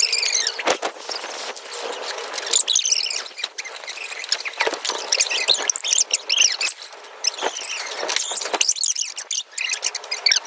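Rubber balloons squeaking as they are rubbed and handled, a run of short high squeals that slide up and down, with a few clicks.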